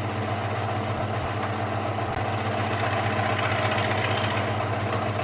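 A steady motor hum that runs without change.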